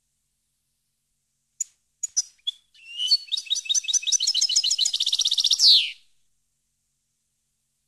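European goldfinch singing: a few short high call notes about a second and a half in, then a fast twittering phrase of rapidly repeated notes lasting about three seconds that ends in a falling note.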